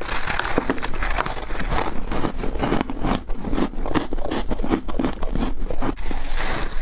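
Person biting into freezer frost: a dense run of crisp crunches, several each second.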